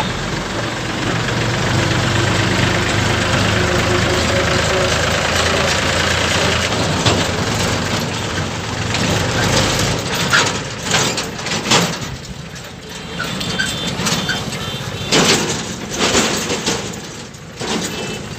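Road traffic on a bridge: a tractor's diesel engine runs close by with a steady low hum for about the first half, then drops away, leaving uneven noise of passing vehicles.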